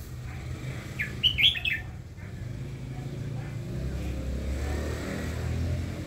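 Red-whiskered bulbul giving a short burst of four or five bright, rising whistled notes about a second in. A low steady rumble underneath grows louder in the second half.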